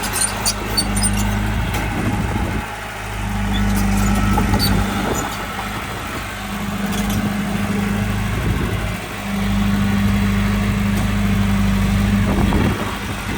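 Diesel engine of heavy earthmoving machinery running, growing louder and easing off every few seconds as it works. There is some light clicking or clatter near the start.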